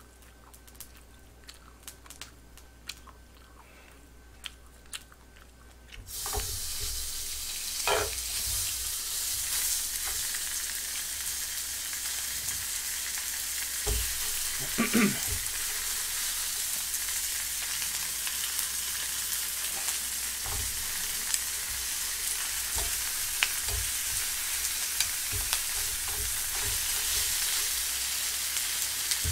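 Raw pork belly strips sizzling in a hot frying pan: a light click or two, then about six seconds in a sudden steady hiss as the first strip goes in, with scattered ticks of the tongs against the pan.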